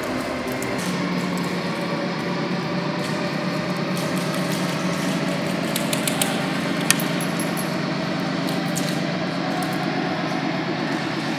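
A small engine running steadily at an even speed, with a few sharp clicks about six to seven seconds in.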